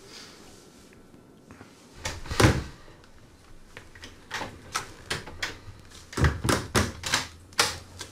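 A wooden door thuds about two seconds in, followed by an irregular run of sharp knocks and bangs at a door.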